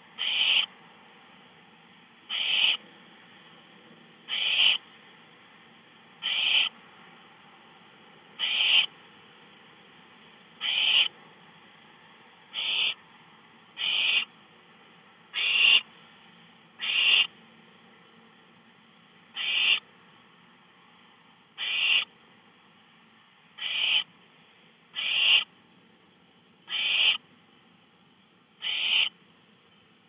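Barn owl nestlings giving rasping, hiss-like "snore" calls, each about half a second long and repeated every second and a half to two seconds, the begging call owlets make for food. A faint steady hum lies underneath.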